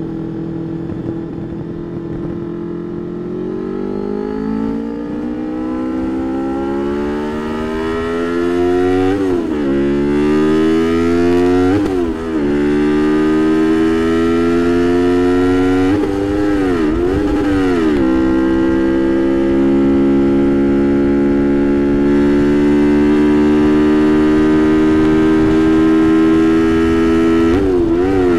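Straight-piped 1999 Honda VFR800 V4 engine accelerating hard through the gears, its pitch climbing in each gear and dropping sharply at each of several upshifts, then holding nearly steady at speed and growing louder.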